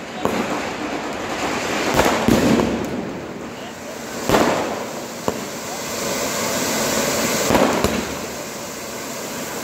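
Fireworks going off: a continuous crackle of bursting firecrackers with a handful of louder sharp bangs spread through, the biggest about two seconds in, just after four seconds, and near the end.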